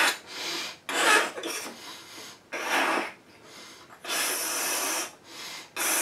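A person breathing hard while inflating a large balloon by mouth: short, sharp breaths alternate with blows into the balloon, and one longer steady blow comes about four seconds in.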